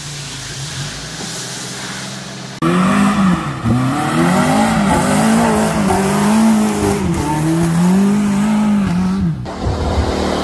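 Suzuki Samurai engine revving hard, its pitch rising and falling over and over for several seconds. Before it, for the first couple of seconds, a steadier, lower engine note.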